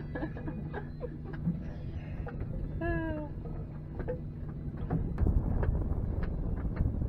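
A short, falling vocal cry about three seconds in, over a steady low hum and scattered clicks of handling on the boat deck. From about five seconds in, wind rumbles on the microphone.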